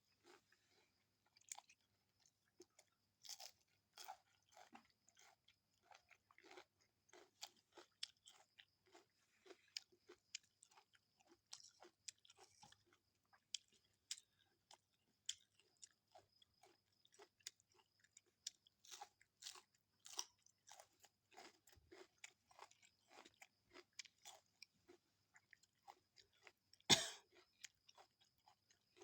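Close-up eating sounds: soft, irregular chewing and crunching of a rice and fried-fish meal, many small clicks a second. Near the end there is one sharp, louder knock.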